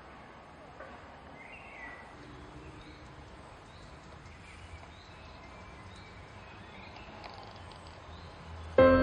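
Faint steady background noise with a few short bird chirps. Music with sustained notes starts loudly near the end.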